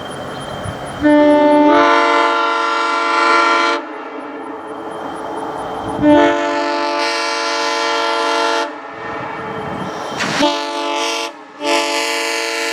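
Locomotive air horn blown in four blasts: a long one about a second in with its notes coming in one after another, a second long one, a short one, and a last one still sounding at the end. A hiss comes before the first blast.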